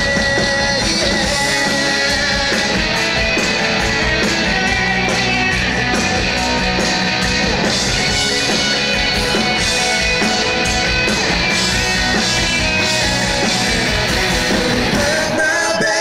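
Country-rock song by a band: electric guitars and drums with a sung lead vocal.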